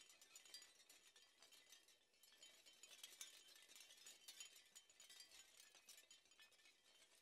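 Near silence, with faint high tinkling and clicking throughout.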